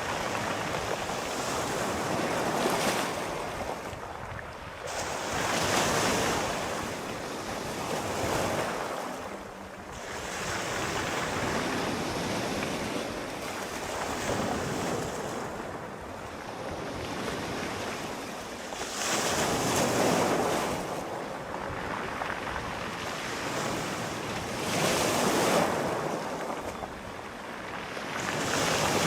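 Sea waves rolling in and washing up, the surf rising and falling in swells every few seconds, with some wind.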